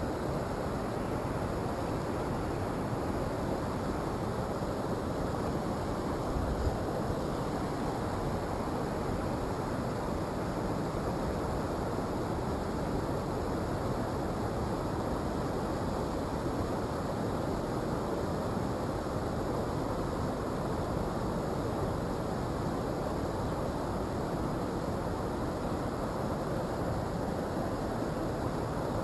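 Steady rush of a mountain stream's flowing water, with one brief low thump about six and a half seconds in.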